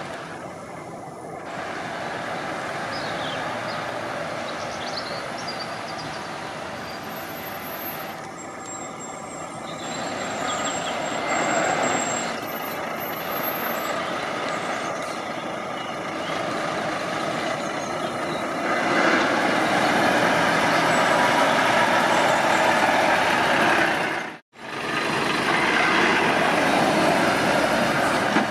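Volvo FH 460 tractor unit's six-cylinder diesel engine running as the truck pulls out of a junction and drives past, getting louder as it comes close in the last third. The sound cuts out for an instant shortly before the end.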